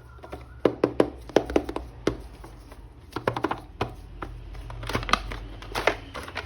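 Hands handling a plastic action figure and its packaging: an irregular string of sharp clicks and taps with some crinkling.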